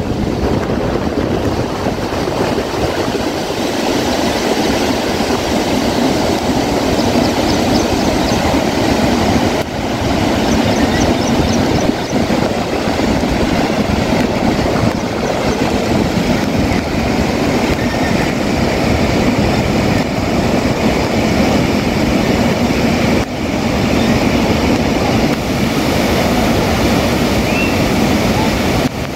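Floodwater rushing over the stepped overflow of a reservoir weir, a loud steady rushing noise. It shifts abruptly twice, about ten and twenty-three seconds in.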